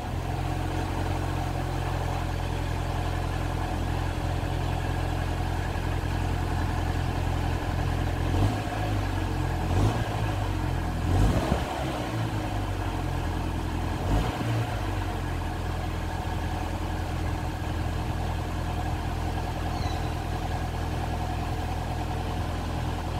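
Stock BMW 116i F21's N13 1.6-litre turbocharged four-cylinder idling steadily through its standard exhaust, just after a cold start. A few brief wavers in engine speed come roughly midway.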